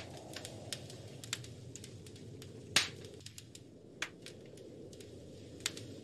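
Wood fire crackling in a fireplace: scattered sharp snaps and pops, the loudest about three seconds in and another about a second later, over a steady low rush of wind.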